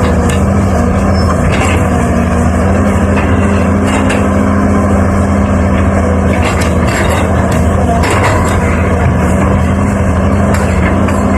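Heavy diesel machinery engine running steadily at a constant speed, with a few light knocks here and there.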